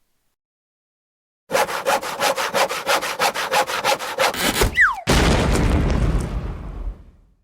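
Cartoon sound effect: fast sawing strokes, about six a second, start after a second and a half, followed by a short falling whistle and a loud crash that fades out over about two seconds.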